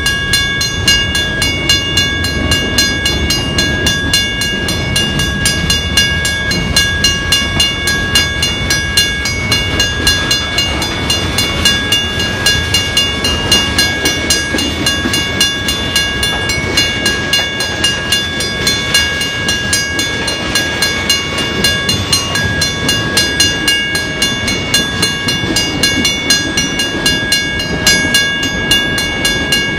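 Freight cars rolling past a grade crossing, their wheels clicking over rail joints in a quick, even rhythm over a low rumble. The crossing's warning bell rings on in a steady high tone above it.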